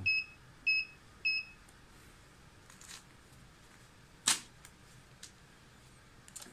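Secure LD-26M money counter beeping three times in quick succession, each short high beep answering a press of its batch button as the batch count is stepped down to 10. About four seconds in comes a single sharp click, followed by a few faint ticks.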